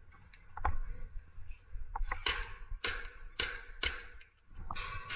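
Glock 17 CO2 airsoft pistol firing single shots: a run of about five sharp cracks roughly half a second apart, starting about two seconds in.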